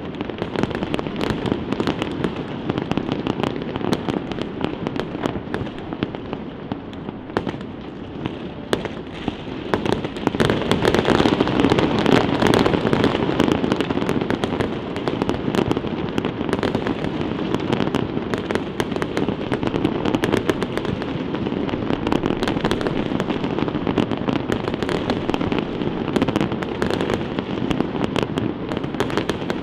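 Aerial fireworks bursting in rapid succession, a dense run of bangs and crackles that builds to its heaviest about ten seconds in.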